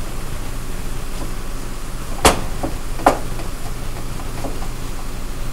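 Wooden spoon stirring and breaking up raw ground pork in a stainless steel skillet over a steady frying sizzle, with two sharp knocks of the spoon against the pan less than a second apart past the middle and a few lighter taps.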